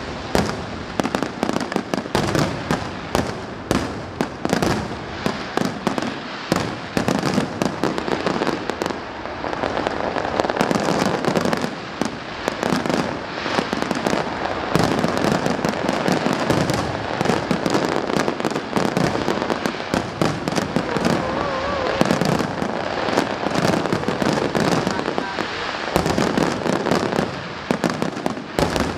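A fireworks display at full intensity: a dense, continuous barrage of bangs and crackles that breaks off suddenly near the end.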